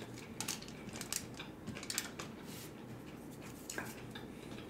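Faint eating sounds: scattered small clicks and rustles as fingers handle fried chicken nuggets and waffle fries over a foil-lined tray, with light mouth sounds.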